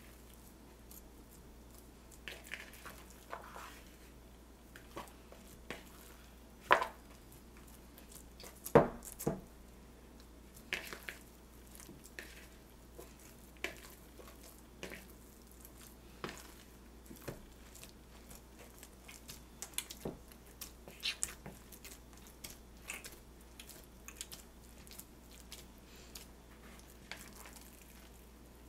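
Hand kneading sticky yogurt bread dough in a bowl: irregular soft squelches and the sticky tearing of dough pulled apart, with two louder knocks against the bowl partway through.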